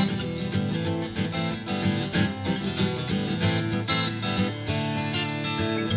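Background music led by guitar, notes plucked and strummed at a steady pace.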